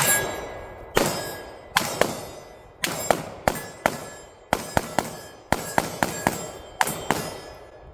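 A timed string of rapid pistol shots, about twenty in all, some in quick pairs and triplets, with steel targets ringing after the hits.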